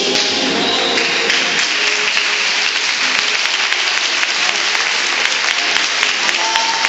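Audience applauding, many hands clapping. The applause takes over from the music at the start, with faint music still underneath.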